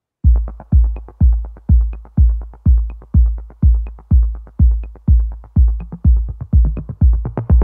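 Background electronic dance music with a steady kick-drum beat, about two beats a second, and quick ticks between the beats.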